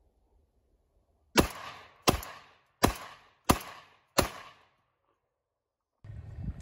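Five shots from a Revolution Armory Titan bullpup 12-gauge semi-automatic shotgun, fired in quick succession about two-thirds of a second apart, each trailing off in a short echo.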